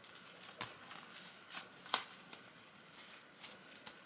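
Plastic shrink-wrap on a vinyl LP jacket rustling and crackling as it is slowly peeled off by hand, with sharper crackles about half a second and two seconds in.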